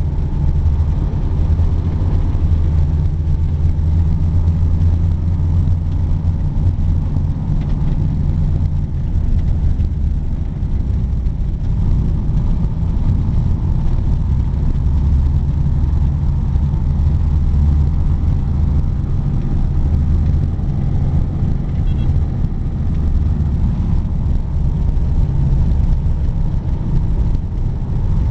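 1947 Bombardier snowmobile's engine running steadily under way, heard from inside its cabin as a loud, low drone that swells and eases slightly in strength.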